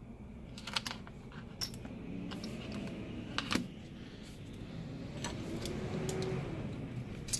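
Scattered small clicks and light handling noises from adhesive tape strips and small tools being worked onto the iPad Air's frame.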